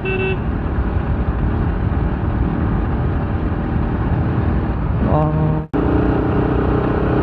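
Bajaj Pulsar RS200 motorcycle under way, its single-cylinder engine running with heavy wind noise on the camera's microphone. About two-thirds through there is a sudden break, after which a steady pitched hum joins the noise.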